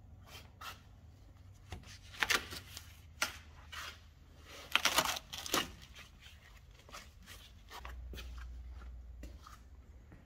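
Irregular clicks, scrapes and rustling of hand work on parts, with two louder bursts of tearing and scraping about two and five seconds in.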